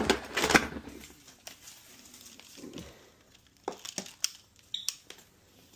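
Rustling and handling noise for about a second, then a few light, separate clicks.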